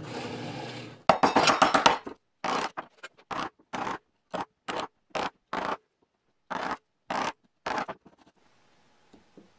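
A drill press runs briefly, then a wood chisel pares and scrapes out a shallow recess in a wooden board: about a dozen short scraping strokes, roughly two a second, stopping about eight seconds in.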